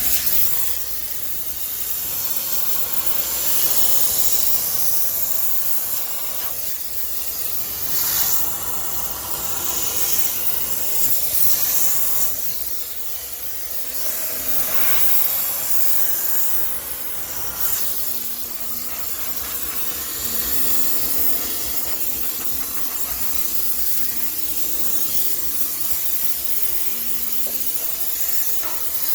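High-pressure steam sterilizer hissing as it blasts steam into a laundromat washing machine, a continuous hiss that swells and eases as the jet is moved.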